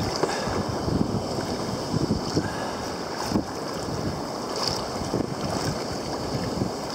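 Wind buffeting the microphone over rushing, splashing water around a sea kayak as it is paddled, with a few sharper splashes as the paddle blades dip in.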